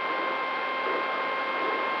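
Brushless motor (DYS Fire 2206 2300KV) spinning a Gemfan 6x4 propeller on a flying wing in flight, heard from the onboard camera. It makes a steady high-pitched whine at constant throttle over a rough mechanical noise.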